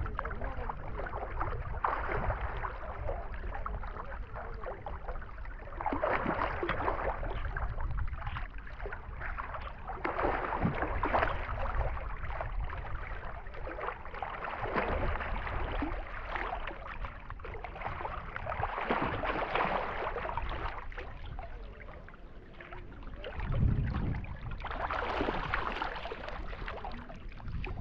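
Sea water sloshing and splashing around a camera held at the surface, in surges every few seconds, over a steady low rumble.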